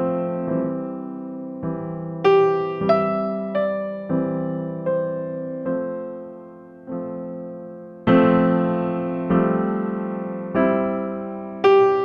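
Background music: a slow electric piano playing struck notes and chords, each one fading before the next.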